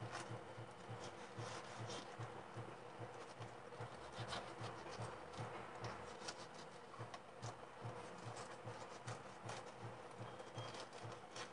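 Faint, irregular scraping and light ticking of a kitchen knife cutting a pejerrey fillet away along the backbone.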